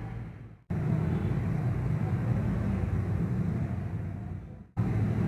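Steady low background hum and hiss. It fades out and drops to silence twice, briefly about two-thirds of a second in and again near the end, then comes straight back.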